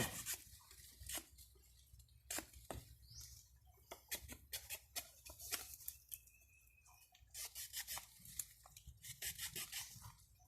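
Faint, intermittent scraping and scratching: short rough strokes against the bark of a sea hibiscus (Thespesia populnea) cutting, coming in irregular runs, busiest near the end.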